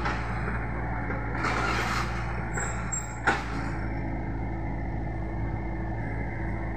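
Mini excavator's diesel engine running steadily as the boom and bucket work, with a burst of hiss about a second and a half in and a single sharp clank about three seconds in, followed by a steady hum over the engine.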